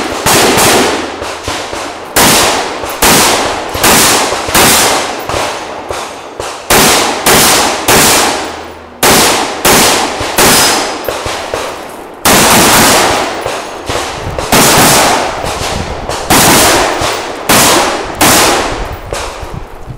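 Pistol shots fired in quick strings of two and three, about two dozen in all, each with a ringing echo tail, broken by short pauses between strings.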